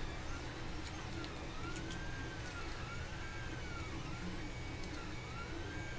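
Desktop 3D printer running: its stepper motors whine in repeated rising-and-falling tones about a second long, unevenly spaced, over a steady fan hum. A few faint clicks of small parts being handled.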